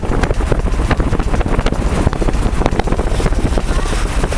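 Wind buffeting the microphone: a loud, continuous rumble with irregular gusty thumps.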